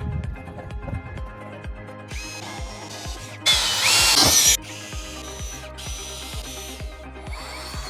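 A power tool running in short bursts over background music with a steady beat; the loudest burst lasts about a second near the middle.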